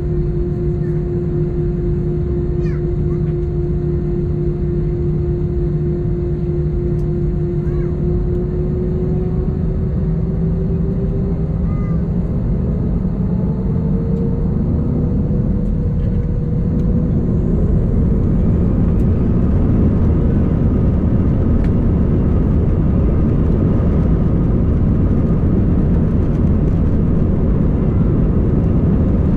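Airbus A321-211's CFM56 jet engines heard from the cabin over the wing: a steady engine hum with a held tone that climbs in pitch about halfway through as the engines spool up to takeoff thrust, then a louder, rougher rumble as the takeoff roll begins.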